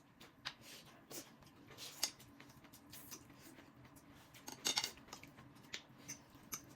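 Faint eating sounds at a meal: scattered clicks and taps of utensils against dishes, with a louder, noisier cluster a little under five seconds in.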